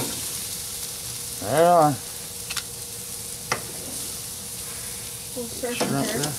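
Steak and shrimp sizzling steadily on a grill grate over hot coals, with a couple of sharp clicks of metal tongs as the food is turned.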